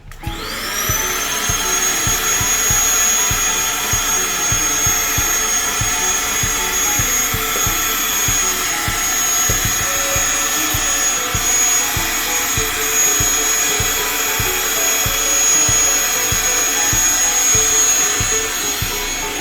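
Electric air pump for an inflatable car airbed switching on, its whine rising to pitch within about a second, then running steadily as it sucks the air out to deflate the mattress.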